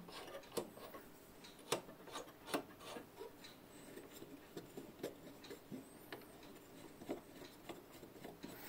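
Faint rubbing and scattered light clicks from a hand handling parts inside a wooden radio cabinet.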